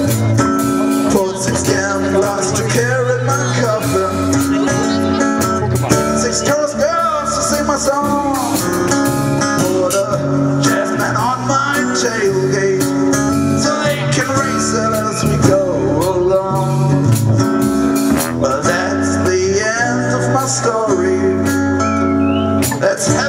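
Small blues band playing an instrumental break: a lead guitar plays bending, sliding notes over steady, stepping bass notes and light drums.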